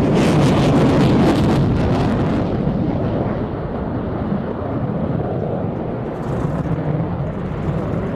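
Twin General Electric F110 turbofans of an F-14B Tomcat in afterburner: loud, crackling jet noise that loses its high end and softens about two and a half seconds in as the jet pulls away.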